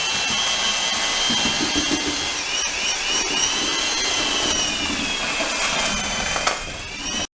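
Keyang D-23 handheld mortar mixer's electric motor running steadily with a high whine. The whine wavers in pitch about two and a half seconds in and again near the end.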